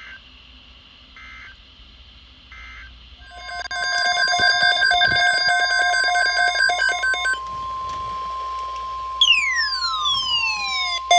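Weather radio emergency alert signalling between messages: three short digital data bursts about a second apart end the previous warning. Then the alert tones for the next message start: a steady attention tone near 1 kHz, overlaid with rapid electronic beeping, and from about nine seconds in a falling electronic sweep.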